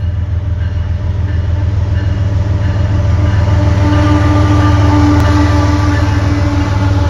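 A string of CSX diesel freight locomotives approaching and passing close by, their engines giving a loud, steady low rumble that builds toward the middle. From about three and a half seconds in, a steady tone rises above the rumble for a few seconds.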